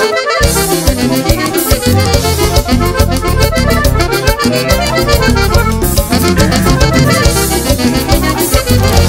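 Instrumental band music led by a button accordion, over a rhythm section of bass, drum kit and congas keeping a steady beat. The low end drops out briefly right at the start, then the full band comes back in.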